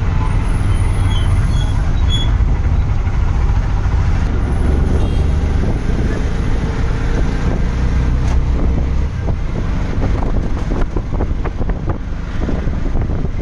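Steady low rumble of traffic and vehicle noise while moving along a busy street. The rumble eases about nine seconds in, and wind buffeting on the microphone crackles through the last few seconds.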